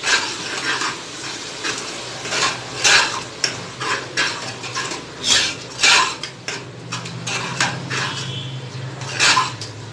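Stainless steel slotted spatula scraping and clinking against the bottom and sides of an aluminium pressure cooker while stirring a thick masala, in quick irregular strokes.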